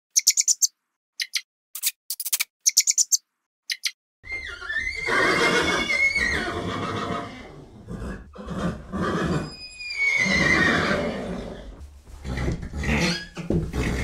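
A few short, high-pitched chirping bursts cut by silence, then about four seconds in a loud animal call begins: two long high cries, each falling in pitch.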